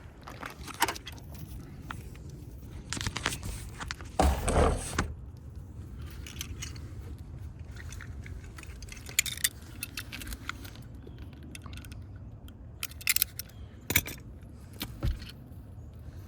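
Handling noise as an extension cord is run and fixed in place: scattered clicks, light rattling and scraping, loudest about four seconds in, with a few quick clicks near the end.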